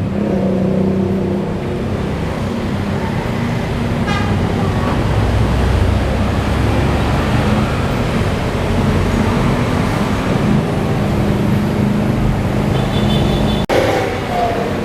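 Busy street traffic: vehicle engines running and passing, with a short horn toot about four seconds in.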